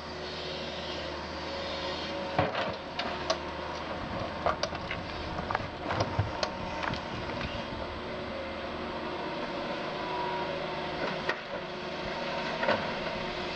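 Doosan DX180 LC tracked excavator's diesel engine running steadily, with scattered sharp knocks and cracks from the work throughout.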